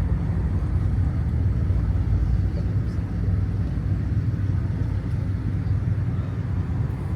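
Fishing boat's engine running steadily: a constant low drone.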